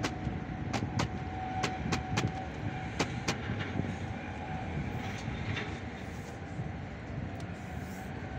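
A run of sharp clicks and knocks, about eight in the first three and a half seconds, as a dredger engine's metal-mesh air filter cartridge is handled and cleaned. A steady background rush runs underneath.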